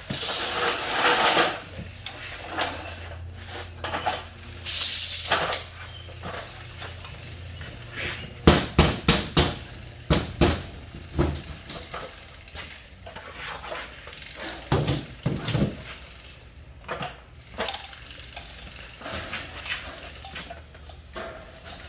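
Drywall-hanging work noises: irregular knocks and clicks from sheets and tools, with a quick run of sharp knocks about nine seconds in and two short bursts of scraping near the start and around five seconds.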